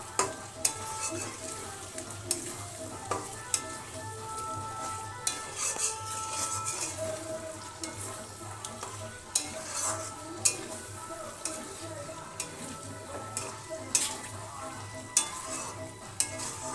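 Chicken pieces being stirred into a sizzling masala in a pan, the spatula scraping and knocking against the pan at irregular intervals over a steady frying sizzle.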